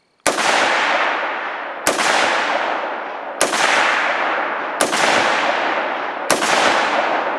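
Five shots, about a second and a half apart, from a 5.56 rifle with a 16-inch barrel fitted with a White Sound Defense FOSSA-556 muzzle device. Each crack is followed by a long, fading echo that runs on into the next shot.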